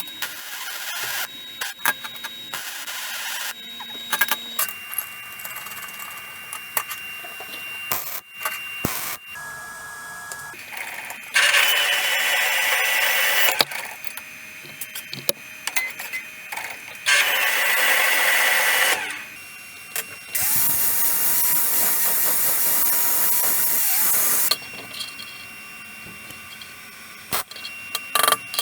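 Workshop power tool run in three bursts of a few seconds each, the last with a steady motor whine that winds up as it starts, between clicks and knocks of parts being handled.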